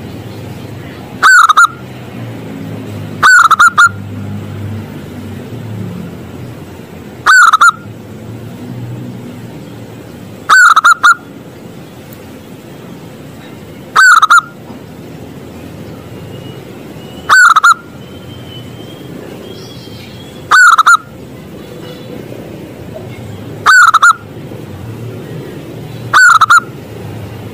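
Zebra dove (perkutut) cooing: nine short, loud calls, one about every three seconds, over a low steady background rumble.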